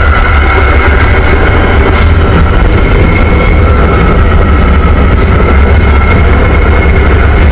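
Moving train heard from inside the carriage: a steady, heavy low rumble with a steady high whine over it.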